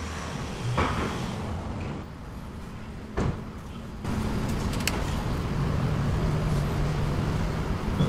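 Steady low background rumble with a faint hum, a short sharp click about three seconds in, and the rumble growing louder about four seconds in.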